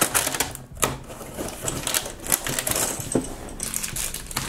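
Hands opening a cardboard advent-calendar door and handling a small plastic bag of toy pieces: an irregular run of light clicks, taps and crinkles, with a sharper click about a second in.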